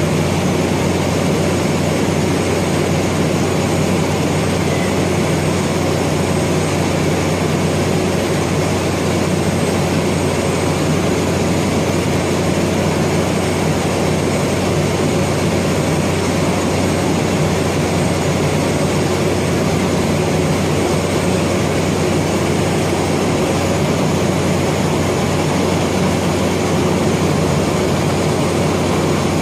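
Steady machinery drone with a constant low hum, unchanging in level and pitch throughout.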